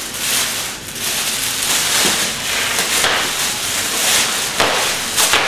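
Thin plastic shopping bag crinkling and rustling while wood litter and food scraps slide from a plastic cage tray into it, a steady crackle without a break.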